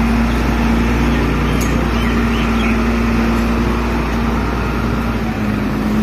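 Case 621F wheel loader's diesel engine running steadily at close range while it works its bucket, lifting a load of snow and ice over a dump truck.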